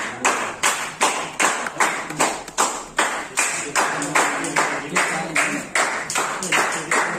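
A group of people clapping together in a steady rhythm, about two claps a second.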